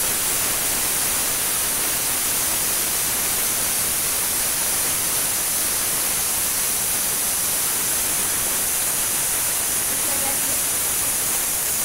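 Pressure cooker whistle: a steady, loud hiss of steam jetting from the weight valve, starting and stopping abruptly. The cooker of chickpeas has come up to pressure.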